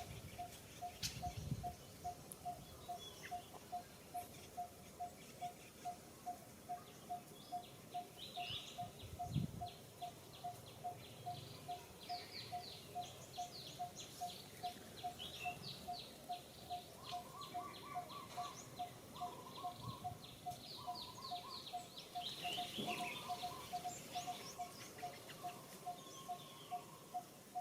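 Birds calling: quick high chirps and twittering, over a single mid-pitched note repeated steadily about twice a second. A few low thumps come in the first seconds.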